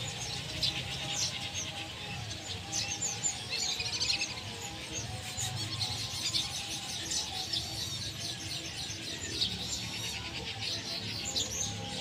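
Background music with many short, high bird chirps and twitters running through it.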